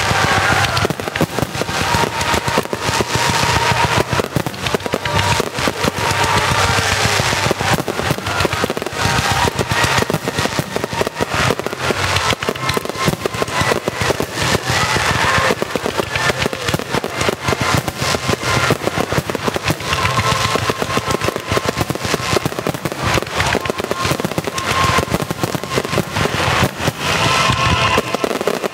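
Grand-finale fireworks barrage: a continuous, dense rapid run of shell bursts and crackling, with music playing along.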